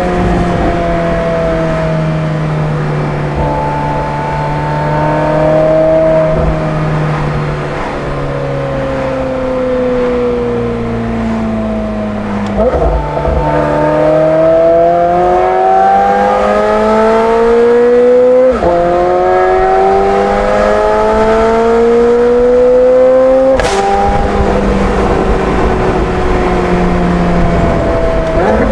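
McLaren 720S twin-turbo V8 with a non-valved titanium double X-pipe exhaust and free-flow downpipes, heard from inside the cabin. It cruises with its pitch slowly falling, then accelerates hard from about twelve seconds in, the note climbing and dropping at two quick upshifts, before settling to a steady cruise near the end.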